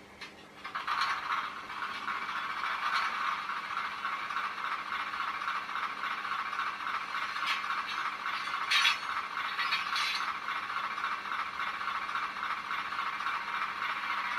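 ESU LokSound micro decoder's diesel engine sound played through a tiny 13 mm speaker in a Bachmann 45-tonner model locomotive. After a click, it comes in about a second in as a steady, rattly engine chatter with fast even pulses, thin and high-pitched as a small speaker gives it.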